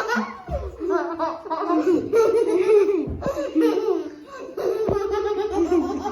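Girls laughing and giggling.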